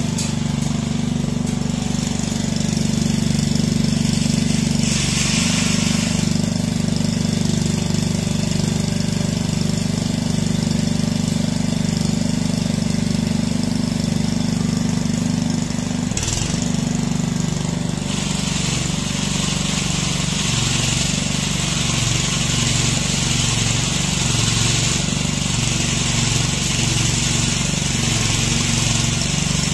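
The petrol engine of a Tielbürger walk-behind weed brush runs steadily while its rotating wire brush scrapes weeds and grit out of the joints between paving stones with a hissing, rasping noise. The scraping comes in briefly about five seconds in, then grows loud again from about sixteen seconds in and stays.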